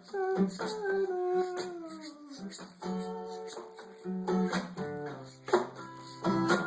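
Guitar playing the opening of a song: a few notes glide downward over the first two seconds, then held chords ring out.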